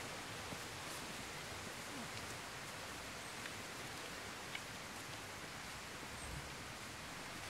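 Steady outdoor hiss, with a few faint scattered ticks.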